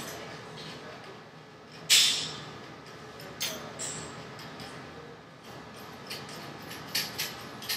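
Small metallic clicks and clinks as a bottom bracket nut is threaded by hand onto the bottom bracket threads. There is one louder clink about two seconds in and a few light ticks later.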